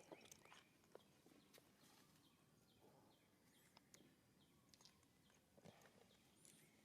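Near silence: faint outdoor ambience with scattered light clicks and rustles and a few faint high bird chirps.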